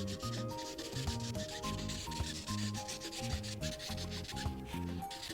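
Marker tip scrubbing back and forth on paper in quick repeated strokes while filling in an area of a coloring page, over a soft background melody.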